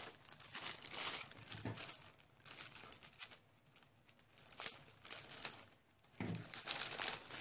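Clear plastic packaging bag around a plush toy crinkling in irregular bursts as it is handled and pulled open.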